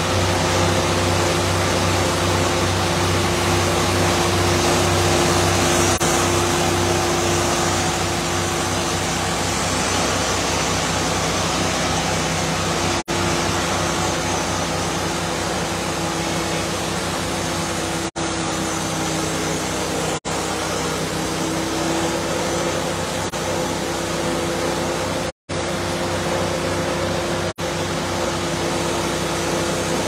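Portable bandsaw sawmill running and sawing a squared log: steady engine and blade noise with a constant hum, whose pitch sags slightly past the middle and comes back. The sound drops out briefly a few times.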